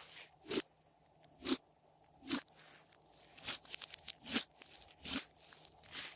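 Glossy slime being pressed and squeezed by hand, giving crisp pops about once a second.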